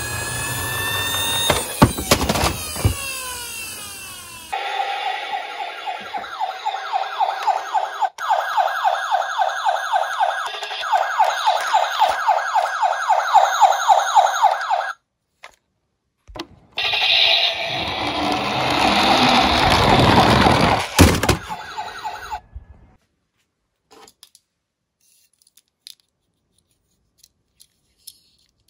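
Electronic siren sound effect from a battery-powered toy vehicle's small speaker, a fast repeating wail at two pitches for about ten seconds, with a noisier toy sound effect following. In the last few seconds there are only faint clicks of a small plastic toy being handled.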